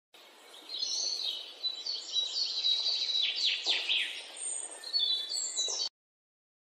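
Birdsong: many overlapping high chirps and short falling calls. It starts just after the start and cuts off suddenly near the end.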